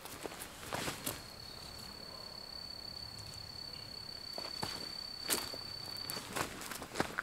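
A steady high-pitched insect trill holding one tone for about five seconds, with scattered footsteps crunching on dry leaf litter.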